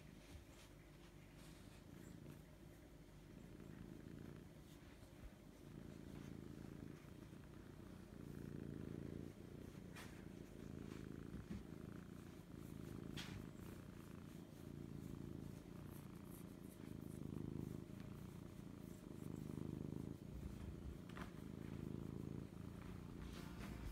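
White Scottish Fold cat purring steadily while its cheek and chin are scratched. The low purr swells and fades with each breath and grows louder as it goes on, with a few faint clicks.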